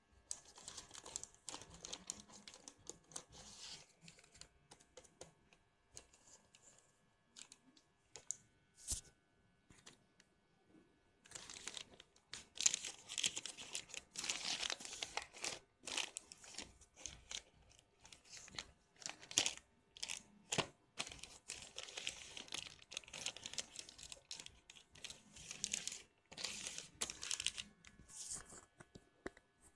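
Plastic courier mailer bag being handled and torn open by hand: irregular crinkling and tearing, sparse at first and much busier from about eleven seconds in.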